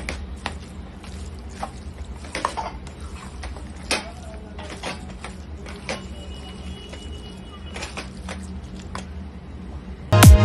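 Light, irregular clicks and knocks of a spoon on a cooking pan over a steady low hum, as a vegetable filling is stirred. Loud electronic dance music cuts in right at the end.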